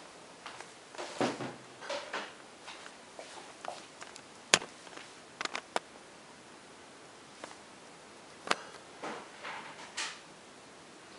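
Handling noise: irregular clicks, scrapes and rustles as the camera is moved and fumbled, with one sharp click about four and a half seconds in.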